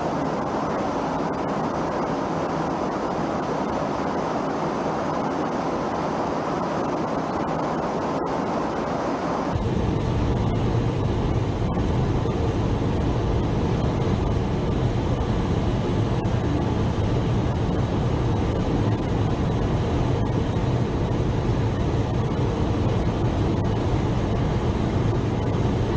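Steady jet engine noise, a constant rush that changes abruptly about nine seconds in to a deeper, lower sound and then holds steady.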